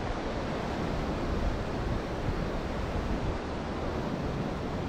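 Steady rush of ocean surf breaking along a rocky shore, with wind buffeting the microphone.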